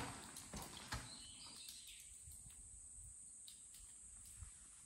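A few footsteps on the ground in the first second, then faint outdoor quiet with a few soft, high chirps.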